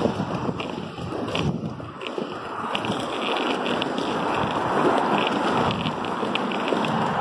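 Quad roller skate wheels rolling over concrete pavement: a steady coarse rolling rumble with light ticks, mixed with wind on the microphone.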